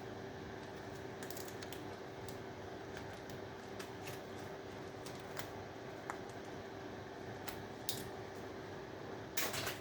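Hand snips clicking and cutting as copper is stripped off scrap circuit boards: scattered sharp clicks, with a louder clatter of about half a second near the end, over a faint steady hum.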